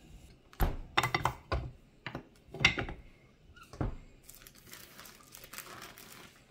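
A wooden tortilla press being worked: several sharp wooden knocks and clatters in the first four seconds, then a softer rustle of the plastic sheet as a pressed masa disc is peeled off.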